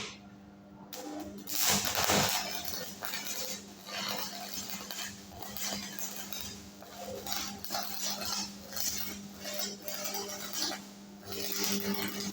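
Stick (SMAW) welding arc crackling irregularly as a 3 mm 6013 electrode burns, starting about a second in and dipping briefly near the end, over the steady hum of the welding machine.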